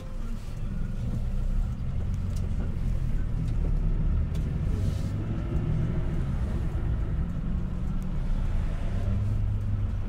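Road noise heard from inside a moving taxi: a steady low rumble of engine and tyres, with a few faint ticks.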